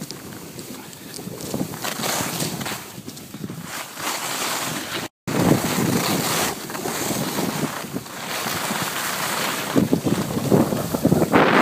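Wind buffeting the microphone and skis scraping and hissing over packed snow while skiing downhill, with the sound cutting out for an instant about five seconds in.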